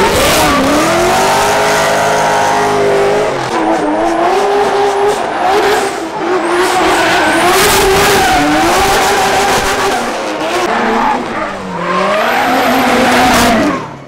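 Drift cars sliding under full throttle. The engines rev high, their pitch rising and falling as the throttle is worked, over heavy tyre squeal.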